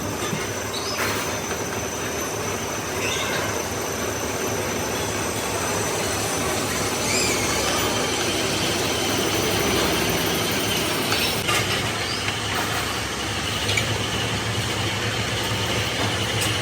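Steady machine-shop noise: a continuous din of running machinery with a low hum and a faint high whine, broken by a few faint knocks.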